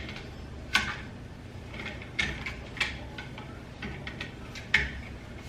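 Plastic parts of a ring light and tripod clicking and knocking as they are handled and fitted together. There is a sharp knock about a second in, a couple more between two and three seconds, and another near the end, with lighter clicks between.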